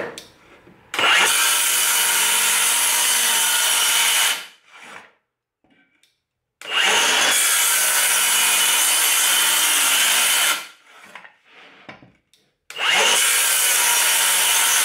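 Cordless Milwaukee circular saw with a 24-tooth blade cutting melamine board in three runs of about four seconds each, stopping in between; the third run starts near the end.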